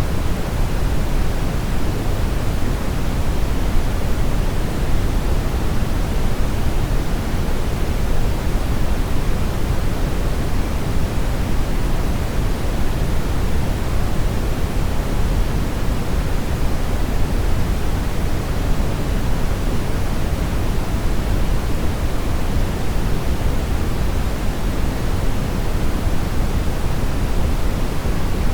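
Brown noise: a steady, deep, even rushing hiss, strongest in the low end and falling off toward the highs, without any change or events.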